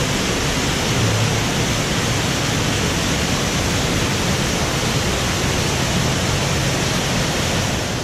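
Waterfall pouring into a cave pool: a steady, loud rush of falling water.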